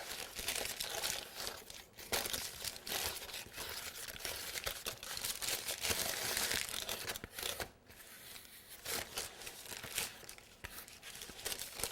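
Parchment paper crinkling and rustling with many small sharp crackles as it is handled and scraped with a scraper, quieter for a moment about two-thirds of the way through.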